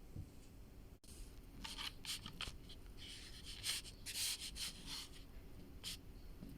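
Irregular rustling and rubbing noises in short bursts, as of materials being handled.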